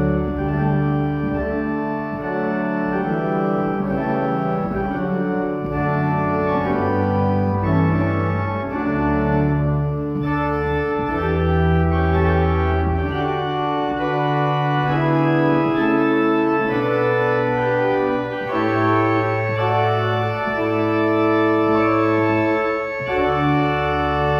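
Organ music: slow, sustained chords over a bass line whose notes change every second or two.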